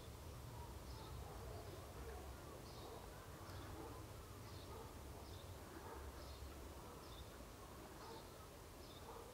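Faint outdoor ambience: a short high chirp repeats about once a second over a steady low rumble, with scattered faint calls in the middle range.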